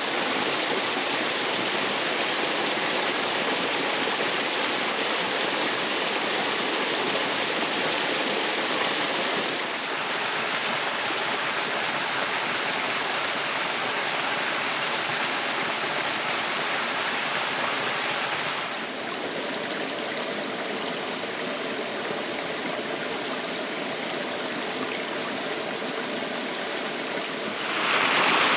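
Steady rush of water falling at Upper Doyles River Falls. It drops a little in level about ten seconds in and again a little before halfway through the second half, and gets louder near the end.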